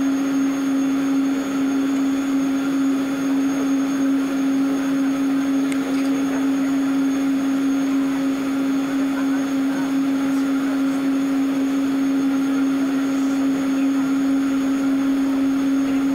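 Jet airliner cabin while taxiing: a steady droning whine over a constant rush of air, the engines at low power.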